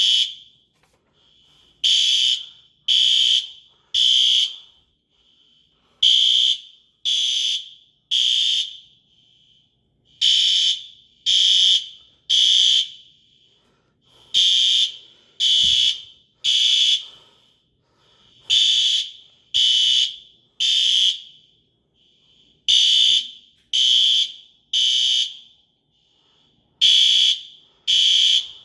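Apartment building fire alarm sounding the temporal-three (Code 3) evacuation pattern. It gives three loud, high-pitched beeps about a second apart, then a short pause, and the group repeats about every four seconds. A fainter alarm beeps in the pauses.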